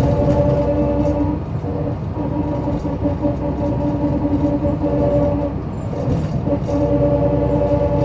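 MAN SL202 CNG city bus under way, its engine and drivetrain giving a steady droning tone. The drone dips briefly about a second and a half in and again around six seconds, then comes back.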